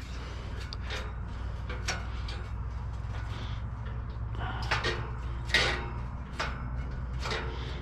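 Scattered clicks, knocks and rustles from things being handled, over a low steady hum.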